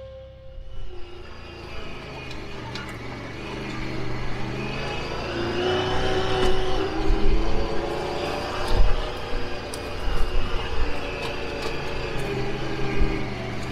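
Side-by-side utility vehicle running and driving, its engine note rising and growing louder about four to six seconds in, with occasional knocks and rattles from the rough ground.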